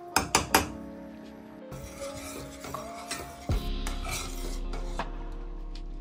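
Metal spoon stirring and scraping in a stainless steel saucepan of split peas in water, with three sharp clinks against the pan in the first second. Background music plays under it.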